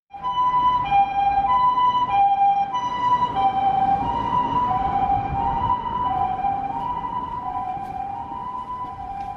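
Japanese ambulance's two-tone siren, the high and low notes alternating about every half second, with the low rumble of the vehicle underneath. The siren drops slightly in pitch about four seconds in as the ambulance passes and fades a little toward the end.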